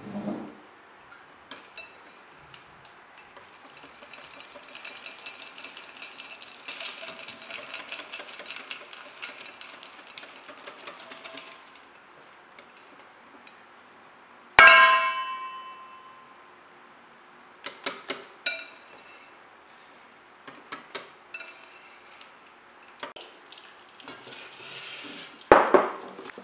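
Kitchen utensil and bowl sounds: a long stretch of light scraping, then a single sharp metallic strike that rings on for about a second, followed by scattered small clicks and knocks and one louder knock near the end.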